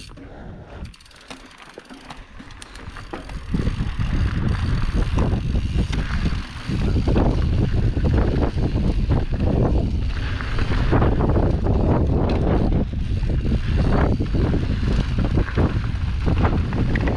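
Mountain bike riding down a dry dirt trail: tyres rumbling over the dirt and the bike rattling over bumps, with wind buffeting the camera microphone. Quieter at first, it turns loud and rough about three and a half seconds in.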